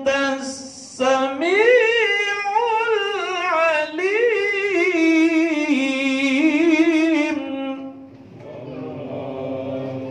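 A solo male voice reciting the Quran in melodic tajwid style through a handheld microphone, its pitch winding up and down in long ornamented phrases. The chanting ends about three quarters of the way through and a quieter voice follows.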